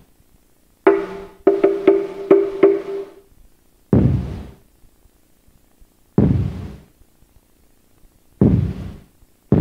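Large mosque drum (bedug) beaten slowly, single heavy strikes about two seconds apart, each ringing out in the hall. About a second in there is a quick run of about six pitched wooden knocks. It is the traditional drum signal before the call to prayer.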